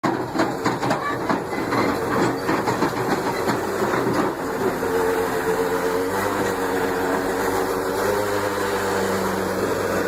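Heavy diesel engine of a bulldozer running, with rapid metallic clanking over the first few seconds, then a steady drone with slight changes in pitch.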